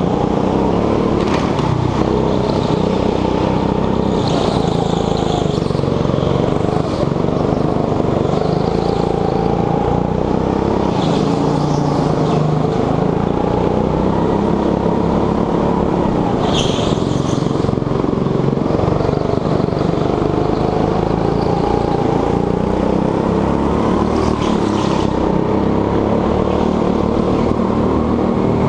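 Onboard sound of a petrol go-kart engine running hard, its note rising and falling as the kart speeds up and slows through the corners. A few brief high-pitched squeals cut in over it at intervals.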